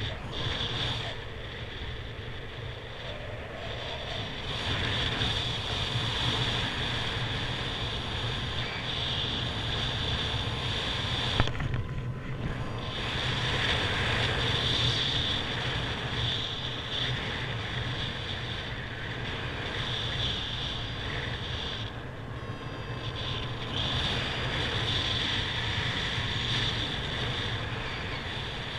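Airflow rushing over the camera microphone during paraglider flight: a steady rush of wind noise that swells and eases every few seconds. One sharp click comes about eleven seconds in.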